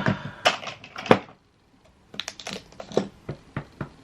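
Makeup compacts and cases being handled: a few sharp clicks and taps, a short pause, then a quick run of light clicks.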